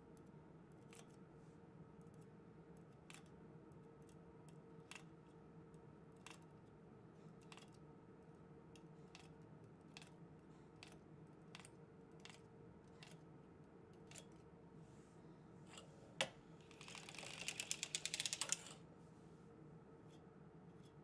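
Faint clicks of a circular sock machine's metal latch needles being moved by hand in the cylinder. The single clicks come every second or so. Late on there is one sharp click, then a quick run of rapid clicks lasting about two seconds.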